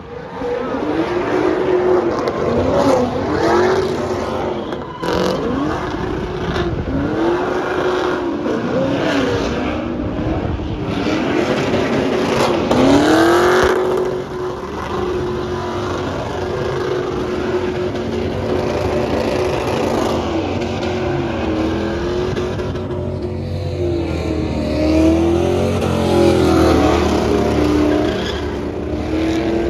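A truck engine revved hard several times in quick rises and falls, then held at steady high revs for several seconds, then revved up and down again near the end.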